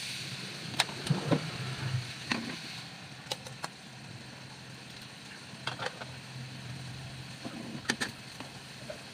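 Hot oil sizzling in a wok as two eggs are cracked into it, with scattered sharp clicks and taps and a low steady hum underneath.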